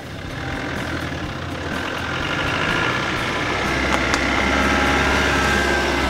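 Land Rover Defender 110 engine running as the four-wheel drive pulls away and drives past close by, growing louder toward the end. A couple of sharp clicks come about four seconds in.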